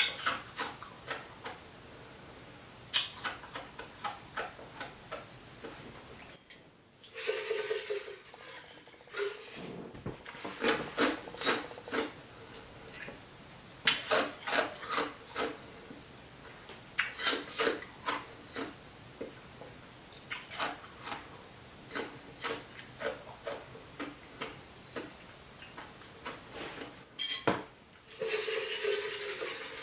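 Ice being crunched between the teeth close to the microphone: clusters of sharp crunches with short pauses between them.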